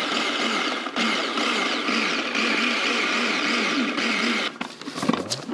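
Immersion blender running on its chopper-bowl attachment, chopping fresh garlic cloves: a steady whir with a brief break about a second in, cutting off about four and a half seconds in. A few light knocks follow as it is handled.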